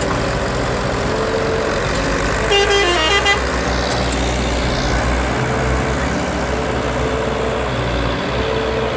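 Case IH JX65C tractor's diesel engine running hard under load while towing a Massey Ferguson 285 bogged down in deep snow. A brief pitched call or toot sounds over it about two and a half seconds in.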